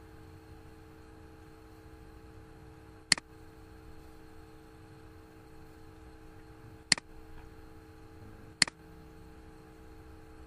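Three sharp computer mouse clicks spaced a few seconds apart, over a faint steady electrical hum.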